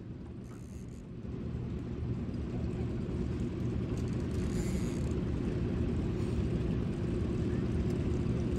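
Boat outboard motor running steadily, growing louder a second or two in and then holding an even hum.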